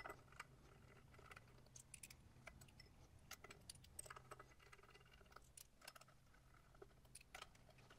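Faint, scattered small metallic clicks and ticks of pulley bolts being handled and started by hand in an aluminium pulley hub, over a low steady room hum.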